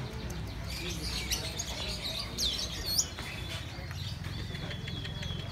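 Lovebirds chirping in quick, high twittering notes, with a few loud sweeping whistles about halfway through, over a steady low background rumble.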